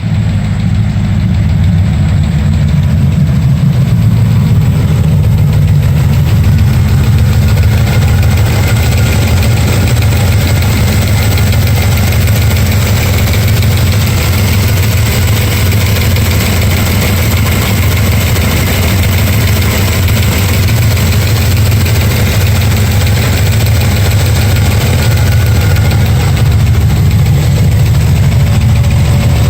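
Vehicle engine idling steadily and loudly, with the ticking noise whose source the owner is trying to track down.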